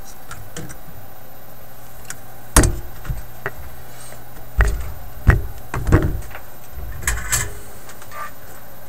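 A handful of sharp knocks and clatters as hand tools are put down and picked up on a wooden workbench beside a radio chassis, over a low steady hum. The loudest knocks come about two and a half seconds in and again near the middle.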